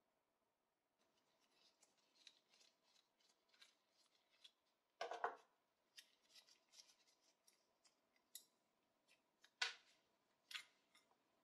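Faint clicks and light scraping of old brass binocular parts being handled in gloved hands, with two louder sharp knocks about five and ten seconds in.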